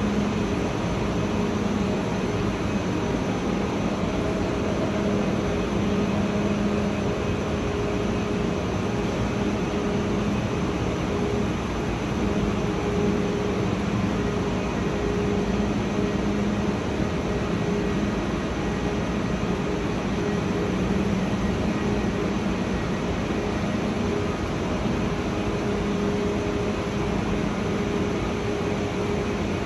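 Steady hum and fan noise from a double-deck TGV inOui (TGV Duplex) standing at the platform, its ventilation and onboard equipment running, with a low two-toned hum that holds even throughout.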